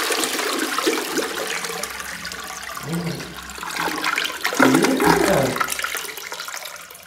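Toilet flushing: water swirling round the bowl and draining down, at its loudest about four and a half seconds in, then fading.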